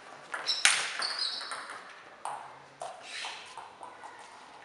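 Table tennis balls clicking and bouncing in irregular short taps, with one louder knock about half a second in.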